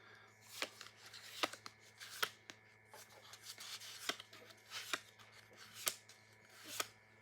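Pokémon trading cards being flipped through one at a time, each card slid from the back of the pack to the front with a short, crisp swish-click, about once a second.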